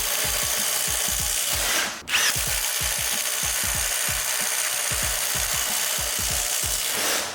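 Cordless impact driver boring a spade bit through wood, its hammering mechanism running hard under load. There is a brief stop about two seconds in, then a rising motor whine as it starts again.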